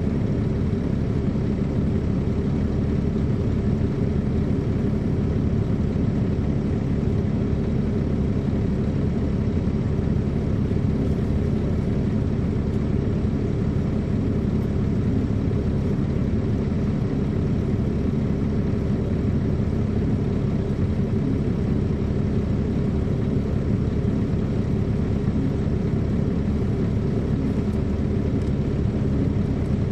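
The Caterpillar C13 ACERT inline-six diesel of a 2007 MCI D4500CL coach bus, running steadily at an even pitch, heard from inside the cabin.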